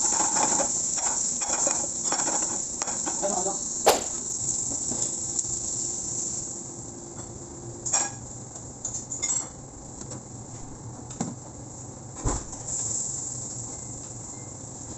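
Vegetables sizzling in a pan tossed over a gas burner, with pan and utensil clatter. The sizzle fades after about six seconds, and a few sharp knocks of dishes on a steel counter follow.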